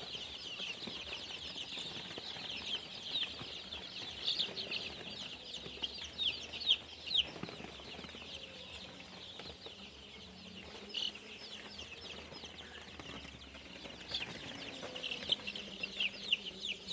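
A crowd of young native chicks peeping, many short, high, falling cheeps overlapping. The peeping thins out in the middle and picks up again near the end.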